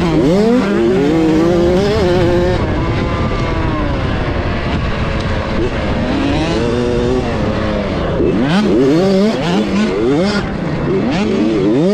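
A 65cc two-stroke motocross bike racing, heard from on board: the engine's pitch climbs sharply and drops again and again as the rider accelerates and shifts. It rises and falls more smoothly in the middle, then climbs sharply again after about eight seconds and near the end.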